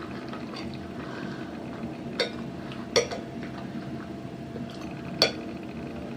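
Forks or spoons clinking against plates while eating: three sharp, separate clinks about two, three and five seconds in, over a steady low background hum.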